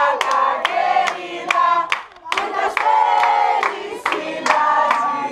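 A room full of party guests singing together and clapping along in a steady rhythm, with a short lull about two seconds in.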